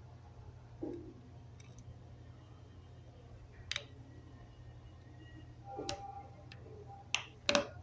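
A handful of separate sharp plastic clicks and taps from a TV remote control being handled, the two loudest close together near the end, over a steady low hum.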